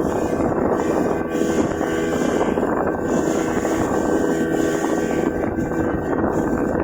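Speedboat engine running steadily at speed, heard from on board.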